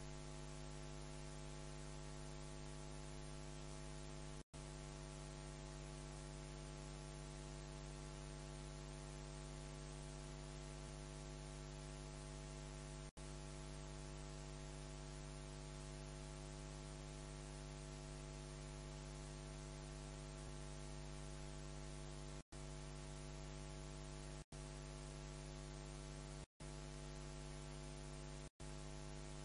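Steady electrical mains hum with a layer of hiss, the noise floor of the recording and sound system, which cuts out completely for an instant about six times.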